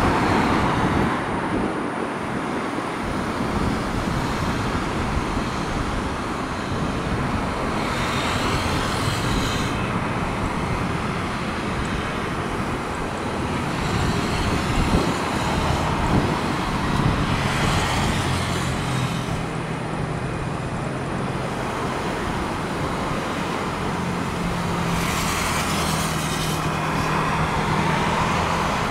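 Aircraft towing tractor's engine running steadily as it pulls an airliner along the taxiway, with a low hum that comes in about halfway through and a hiss that swells and fades three times.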